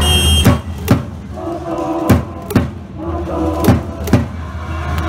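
A school cheering section chanting in rhythm in a gym, with loud beats struck in pairs about every second and a half between the shouted calls. A brief high whistle sounds at the very start.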